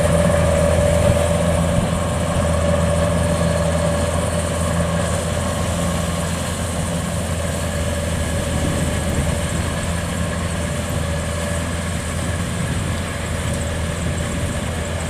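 Kubota DC-105X rice combine harvester's diesel engine running steadily under load while it cuts and threshes rice, a constant drone with a steady higher whine over it, easing slightly in level toward the end as the machine moves off.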